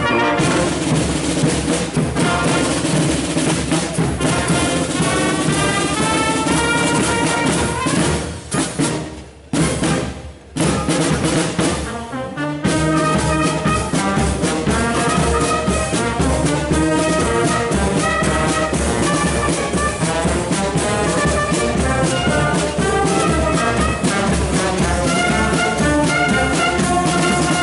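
Brass-and-drum band playing: trumpets and trombones over field drums and bass drums. The music drops out briefly twice, about nine and ten seconds in, then carries on.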